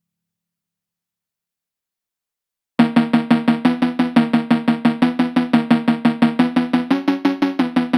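Silence, then background music starts abruptly about three seconds in: a fast instrumental beat of repeated pitched notes, about six pulses a second.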